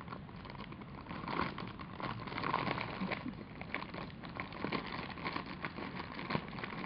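A papillon nosing and pushing at a paper cup on carpet, making irregular rustling, scraping and light clicking noises as it sniffs for the treat.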